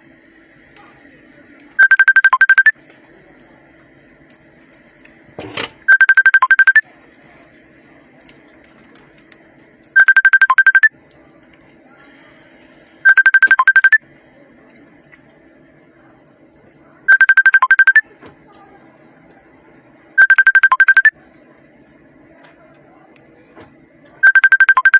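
An electronic alert tone sounds again and again: a loud, rapidly pulsing beep lasting about a second, seven times, every three to four seconds. A single sharp knock comes just before the second beep.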